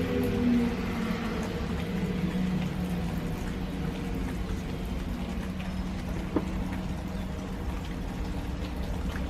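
Outdoor warning siren heard from a distance, its steady tone fading out over the first couple of seconds, over a steady rain-like rushing noise. A single sharp click sounds about six seconds in.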